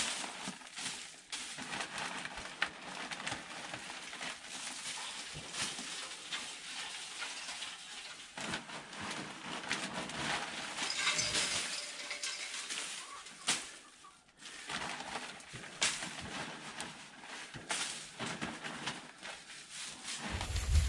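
Irregular scraping and rustling as old bedding is cleaned out of a chicken pen. Near the end, wind rumbles on the microphone.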